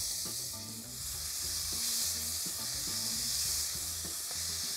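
Chunks of red-wine-marinated beef chuck sizzling steadily as they sear in very hot olive oil and butter in a pot, being laid in piece by piece.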